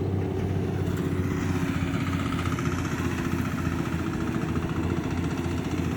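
A small engine running steadily at an even speed. A faint fast rattle rides above it from about two seconds in.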